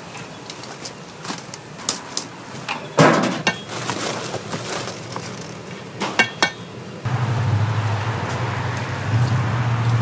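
Metal kitchen utensils clinking and knocking, with scattered sharp clicks and one louder knock about three seconds in. From about seven seconds a steady low hum comes in and holds.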